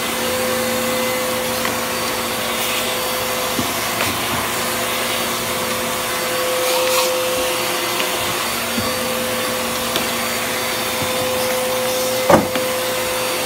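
Vacuum cleaner running steadily, a constant hum over its rushing air, with a single sharp knock near the end.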